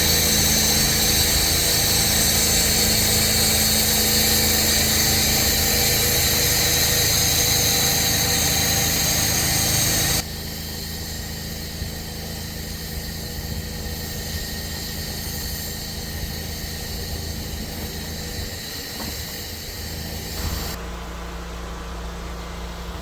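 Pressure-washing equipment running steadily: an engine-driven pump with a hissing spray. It drops abruptly to a quieter steady running about ten seconds in, and changes again near the end.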